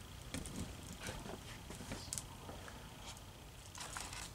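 Faint, scattered rustling and soft clicks of packing material and statue parts being handled and shifted about in a box.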